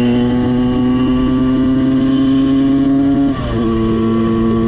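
Simson S51 moped's tuned 85 cc two-stroke single-cylinder engine running hard under way, its pitch creeping up. About three seconds in there is a short dip in loudness and pitch, then it runs steady again slightly lower.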